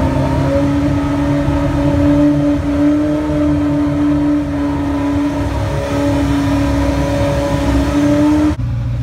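A car engine running steadily at idle, its pitch shifting slightly a few times. Near the end it cuts off abruptly and a lower, duller hum takes over.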